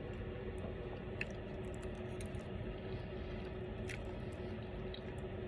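Close-up chewing of black bean noodles (jjajangmyeon), with a few soft wet mouth clicks over a faint steady hum.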